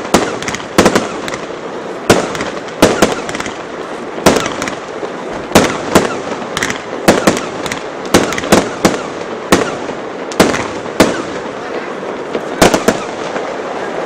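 Aerial fireworks display: shells bursting one after another in sharp bangs, often about a second apart and sometimes in quick pairs, over a steady background noise.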